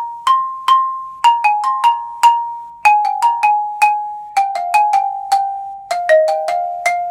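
Xylophone played with mallets: a quick passage of about 25 single struck notes in an uneven, syncopated rhythm, each note ringing briefly, the line stepping gradually downward in pitch. The passage is in a key of three flats (B, E and A flat).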